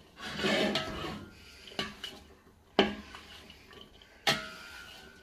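Spatula scraping and tossing minced meat and vegetables in a large stainless steel pan, with three sharp knocks of the spatula against the metal, the last leaving a brief ring.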